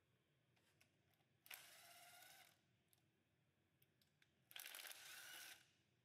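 Cordless power driver running twice, about a second each, with a short motor whine as it backs out the timing chain guide bolts.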